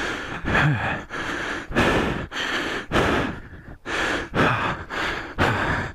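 A man breathing hard and fast, loud gasping breaths in and out about twice a second: he is out of breath from the exertion of wrestling a fallen dirt bike upright.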